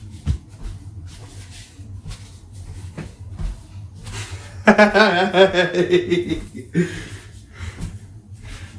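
A man's voice gives a drawn-out chuckle lasting about a second and a half, about halfway through, with a shorter vocal sound just after. A steady low hum and faint rustling noises run underneath.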